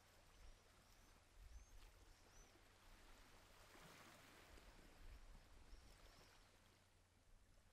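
Near silence: a faint steady background hiss, with a few faint, short, high chirps scattered through it.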